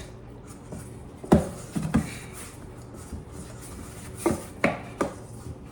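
Dumpling dough of flour and water being mixed and kneaded by hand in a bowl: soft rubbing with a handful of sharp knocks against the bowl.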